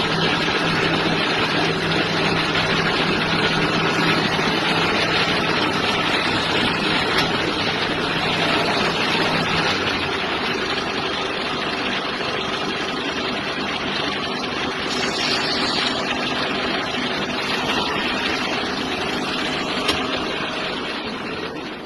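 Brass-cutting lathe running: a steady machine noise with a low motor hum that drops away about halfway through.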